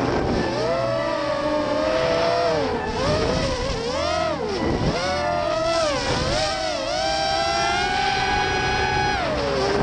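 Racing quadcopter's brushless motors (Cobra 2204 2300 kV with Gemfan 5045 props) whining, the pitch swooping up and down with the throttle through turns, held high for a couple of seconds near the end before dropping.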